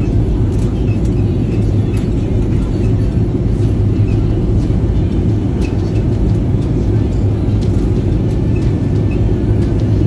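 Steady low rumble of an airliner's engines and airflow inside the passenger cabin in flight, with faint scattered clicks.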